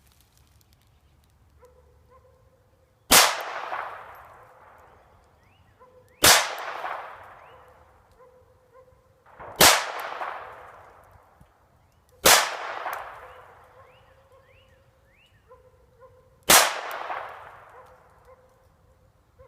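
A .22 handgun fired five times, one shot roughly every three seconds with the hammer cocked between shots, each crack trailing off in an echo of about a second. A faint thin whine is heard in the gaps before each shot.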